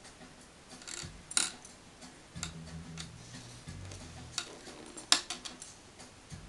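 Tent pole sections and their fittings clicking and tapping as they are handled while the shock cord is worked on. Two sharper knocks stand out, about a second and a half in and about five seconds in.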